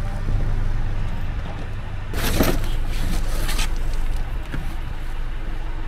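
Flat cardboard sheets scraping and rustling twice as they are dragged up off a trailer bed, over a steady low rumble.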